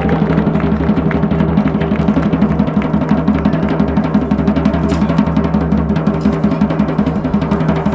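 Music with fast, continuous drumming over a steady low drone.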